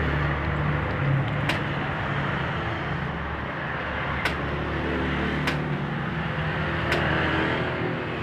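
A motor running steadily with a low hum, with four sharp clicks of plastic packaging being handled.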